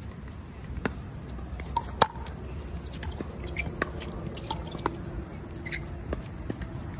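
Pickleball paddles hitting a plastic ball during a rally: sharp pops, the loudest about two seconds in, then a quicker run of lighter taps. A low steady rumble lies under them.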